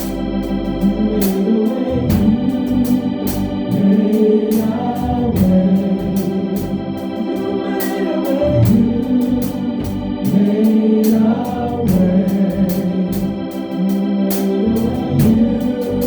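Gospel praise music from the church band playing between sung lines: sustained keyboard chords and a moving bass line over a steady beat of percussion strikes.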